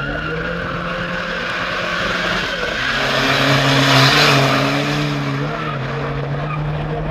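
Two cars accelerating hard down a drag strip, engines running at full throttle with tyre noise. They grow loudest as they pass about four seconds in, then fade away.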